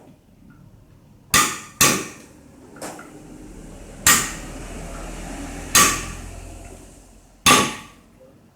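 A ball bearing being driven down into a small farm tractor's clutch assembly with a hammer: about six metal-on-metal blows, irregularly spaced a second or more apart, each ringing briefly.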